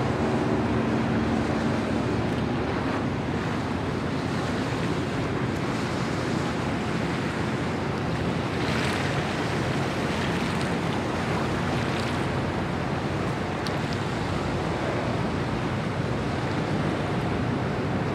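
Choppy lagoon water splashing and lapping, with wind buffeting the microphone. A low hum is also heard at first and fades out within the first couple of seconds.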